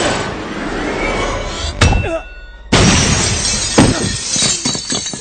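Movie fight sound effects: glass shattering and heavy crashes, with a sudden loud hit about two seconds in and a bigger crash a little later, over orchestral score.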